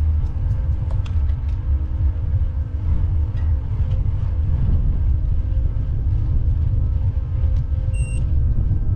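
Strong wind buffeting an action camera's microphone on a bike ride, a heavy, unsteady low rumble that does not let up.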